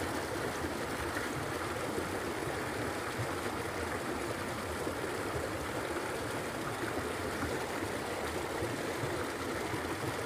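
Steady rush of a small stream's water running.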